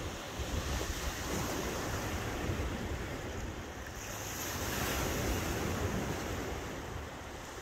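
Small sea waves washing against a boulder-lined shore, with wind buffeting the microphone.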